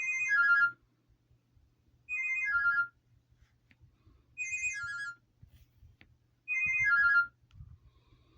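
Alcatel Onetouch The Big Easy Flip phone playing one of its stock ringtones: a quick descending four-note phrase of electronic tones, repeated four times about two seconds apart.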